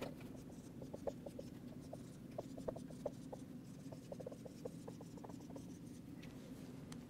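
Dry-erase marker writing on a whiteboard: a faint run of short squeaks and strokes as letters are drawn, over a low room hum.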